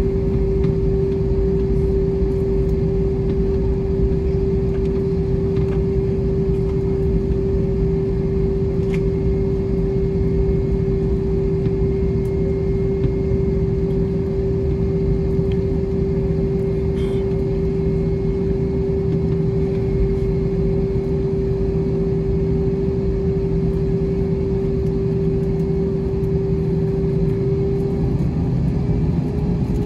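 Cabin noise of an Airbus A321 taxiing: a steady low rumble with an unbroken droning tone, the engines at taxi power. The tone steps up slightly near the end.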